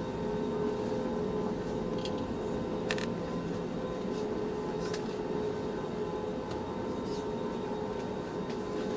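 Airliner cabin noise during takeoff: the jet engines and airflow make a steady roar with a constant hum, and a few faint clicks or rattles come through about two, three and five seconds in.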